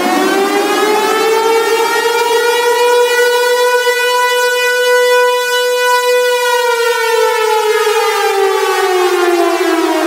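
Loud siren wailing in one slow cycle: the pitch climbs for about the first half, then sinks steadily through the second half.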